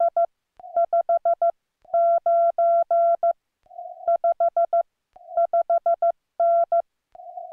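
Morse code sidetone from a Yaesu FTDX10 transceiver keyed with a paddle at about 15 words per minute: one steady tone beeping in dots and dashes, spelling out the signal report 5-5-9 with repeated fives. Each 5 is five quick dots and the 9 four long dashes and a dot. Between characters a faint hiss at the same pitch comes through from the receiver.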